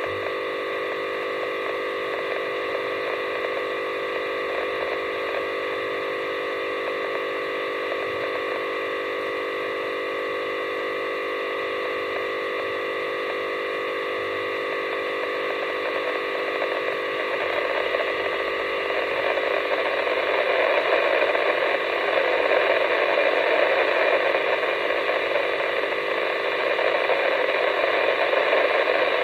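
Radio receiver demodulating a weather satellite's downlink signal: a steady electronic multi-tone buzz that, from about 18 seconds in, turns into a louder noisy hiss.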